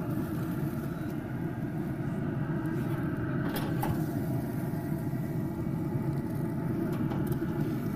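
A steady low rumble, with a couple of faint clicks a little after the middle.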